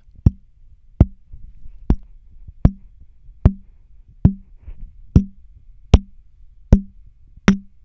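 Finger tapping on a Shure SV100 dynamic microphone, picked up by the mic itself: ten sharp taps, a little under one a second, each followed by a brief low ring. This is a resonance tap test, checking the mic for resonant frequencies.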